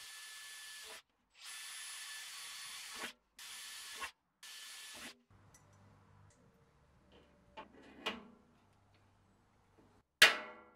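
Cordless drill running in four short bursts, boring holes through the thin sheet-steel side of a drum lid, with a steady whine. After a few light handling clicks, a hand rivet gun sets a steel rivet with a sharp, loud metallic snap near the end.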